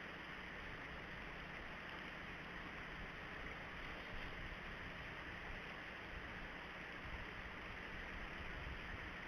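Steady outdoor background hiss with a low rumble, even throughout, with no distinct woodpecker calls or tapping.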